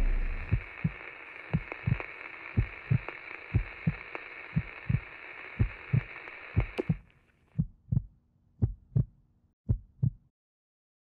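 Heartbeat sound effect: slow double thumps, lub-dub, about once a second, over a steady hiss that cuts off about seven seconds in. The beats go on alone and stop a little after ten seconds.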